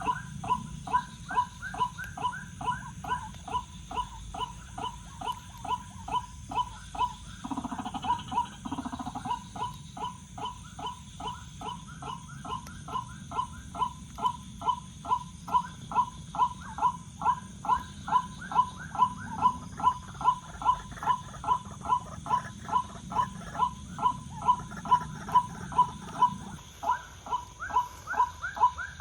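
White-breasted waterhen's 'wak-wak' call repeated steadily, about two calls a second, with a brief stumble in the rhythm about eight seconds in.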